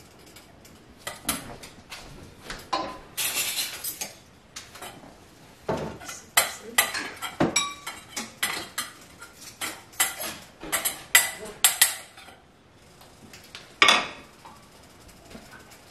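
Glass canning jars, metal lids and spoons being handled on a kitchen counter: a scattered run of sharp clinks and taps with short ringing, and a brief noisy stretch about three seconds in.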